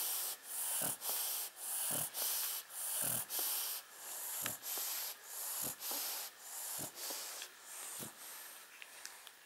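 Sleeping shar-pei breathing noisily through the nose, in quick raspy breaths about two a second with a soft low snort roughly every second. The breathing fades near the end.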